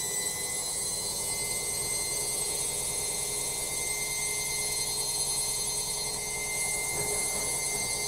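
Logik front-loading washing machine in its final spin, running noisy with a steady, high-pitched whine from the motor and drum.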